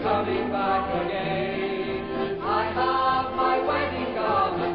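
Gospel song: voices singing a chorus over instrumental backing with a pulsing bass.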